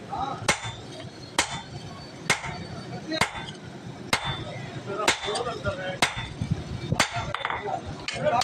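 Hammer blows on a red-hot leaf-spring steel cleaver blade on an anvil, about nine strikes in a steady rhythm roughly a second apart, each a sharp clank with a short ring.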